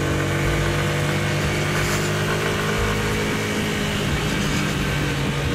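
Romet ZXT 125's small single-cylinder four-stroke engine running at a steady, even pitch while the motorcycle cruises, with steady wind and road rush.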